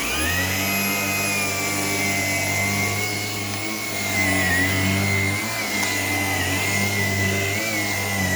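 Shark IP1251 vacuum cleaner running steadily just after being switched on, with a high motor whine over a low hum.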